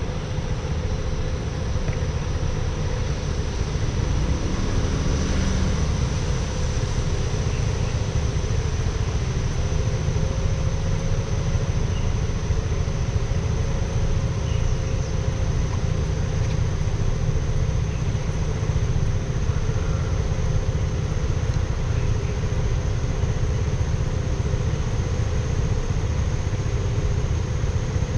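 A car being driven, with steady engine and road noise and no marked changes.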